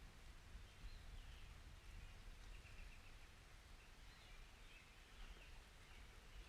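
Very faint outdoor ambience: scattered distant bird chirps and a short trill over a low, steady rumble.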